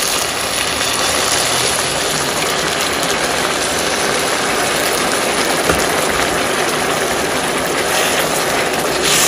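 Hot pan of fried potatoes and okra sizzling and bubbling steadily as poured water hits it and comes to a boil, with a wooden spatula stirring through it near the end.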